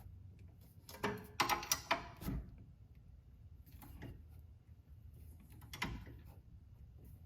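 Hand tool clicking and clanking on metal as the bolt of a rear sway bar end link is tightened. There is a quick run of clicks about a second in, then single clanks around four and six seconds.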